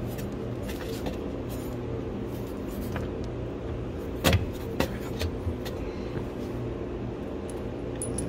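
A steady low mechanical hum, with light scattered clicks and two sharper clicks about half a second apart a little past the middle, the first the loudest: parts and tools being handled while a Haldex controller is lined up and refitted on a rear differential.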